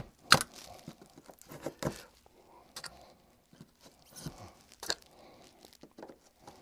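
Sharp clicks and short crunching, tearing scrapes at irregular intervals as T-pins are worked out with pliers from cork and foam roadbed; some pins are glued in and stuck tight.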